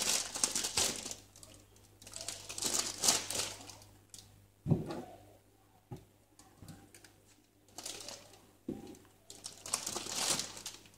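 Fresh coriander rustling and crinkling as a bunch is handled and put into a bowl. It comes in several spells of a second or two, with a couple of soft knocks in between.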